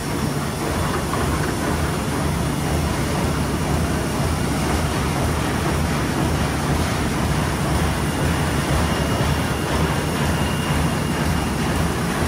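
Meccanotecnica Aster 180 book thread-sewing machine running steadily, a continuous mechanical clatter as it feeds and sews folded signatures.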